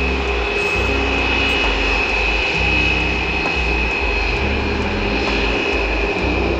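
Airbus A320 taxiing, its jet engines at low thrust giving a steady high whine that drifts slightly lower, over a low rumble.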